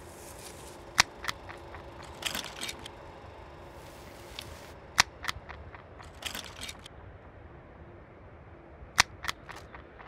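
End-credits sound design: sharp clicks in pairs about every four seconds, each pair followed by a short rustling burst, over a faint steady hum.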